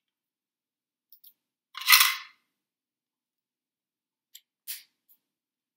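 Small padlock and key being worked by hand: a couple of light clicks, a louder half-second clatter about two seconds in, then a few sharp clicks near the end, as the key is taken out and the lock is snapped shut again.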